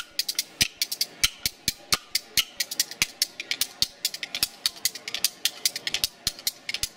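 Background music over the closing credits: a fast rhythm of sharp, clicking percussion, several hits a second, over a faint tune.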